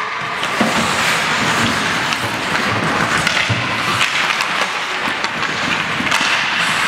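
Ice hockey skates scraping and carving on the rink ice, with sharp clacks of sticks and puck now and then.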